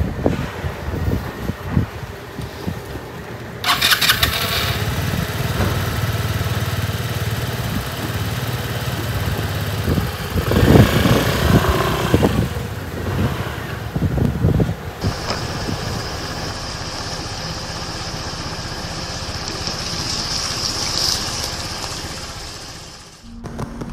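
A 125cc motorcycle's small engine running as it is ridden, its sound shifting several times, with a loud stretch about halfway through.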